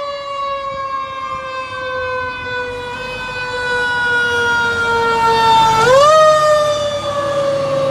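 Fire engine siren winding slowly down in pitch, then swooping sharply back up about six seconds in and starting to fall again. It is loudest as the truck passes close by.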